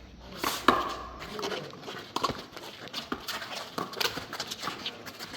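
A handball rally: irregular sharp smacks of the rubber ball being hit by hand and striking the wall, with quick footfalls of players running on the court. The loudest smack comes a little under a second in.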